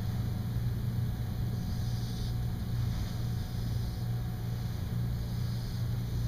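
Dry-erase marker drawing on a whiteboard: faint scratchy strokes about a second and a half in and again near the end, over a steady low hum.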